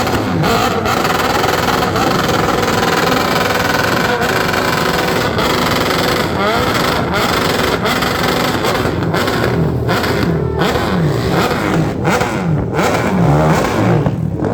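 Motorcycle engines running at a stunt show, revved up and down. In the second half the pitch falls and climbs again several times in quick blips.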